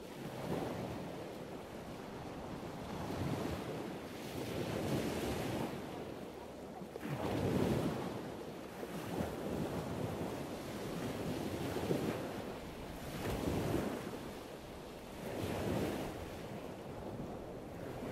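Ocean surf breaking on a beach, mixed with wind buffeting the microphone; the noise swells and falls several times.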